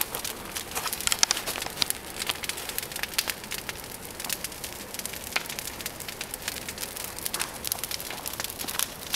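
Large bonfire of a brush pile of branches burning: dense, irregular crackling and popping of burning twigs over a steady hiss of flame.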